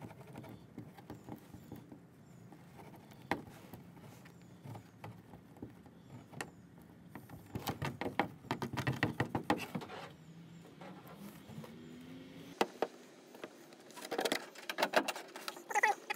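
Hot tip of a hand-held plastic welder scraping and crackling against the sled's plastic as melted HDPE filler stick is worked into the repair. It comes as two spells of quick scratchy clicks, about eight and fourteen seconds in, over a faint low hum.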